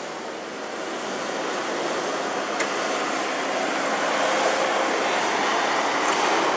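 Land Rover Discovery 2 V8 crawling out of a deep rut under winch recovery: a steady rushing noise of engine and winch that slowly grows louder.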